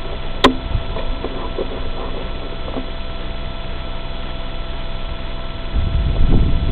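Steady electrical hum from the recording, with one sharp click about half a second in and a few faint ticks after it; a low rumble rises near the end.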